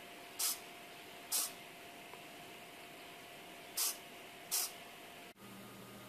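Small hobby micro servo whirring briefly four times, in two pairs, each a short hissy zip as it swings one way and then back. The light sensor driving it is being shaded and uncovered by a fingertip, so each pair is the servo locking and releasing the hinge.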